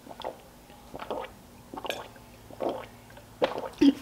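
A person gulping water from a glass jar, with a string of separate swallows coming a little under a second apart.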